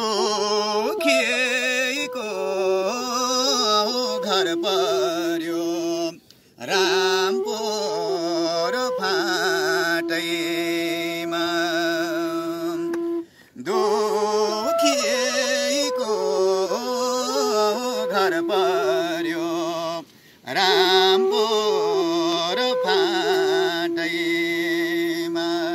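A man singing a Nepali folk melody in long, wavering phrases, each ending on a long held note, with three short pauses for breath; a bamboo flute plays along.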